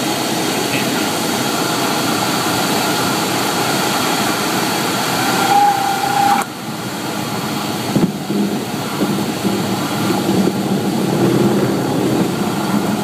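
Light airplane's engine and propeller droning with wind noise, heard from inside the cabin. About six seconds in a short steady tone sounds, and then the overall noise drops off suddenly; a sharp knock follows about two seconds later.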